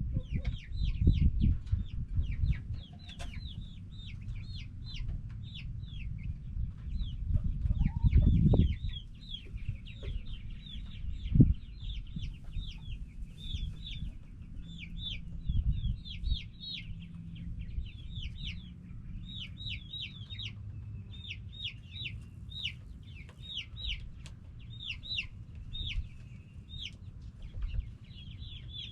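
Backyard chickens calling, with a steady stream of short, high, falling notes in quick succession. Low rumbling noise on the microphone underneath, with a few louder bumps near the start, about eight seconds in and a sharp knock around eleven seconds.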